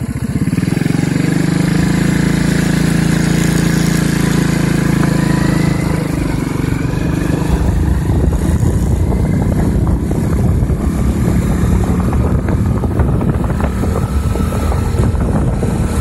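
Engine of a moving vehicle speeding up, its pitch rising over the first few seconds, then running on steadily with wind buffeting the microphone.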